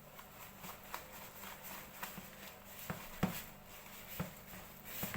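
Light, irregular taps and clicks of kitchen handling as eggs are added to a large pan of flour, butter and oil, over a faint steady hum.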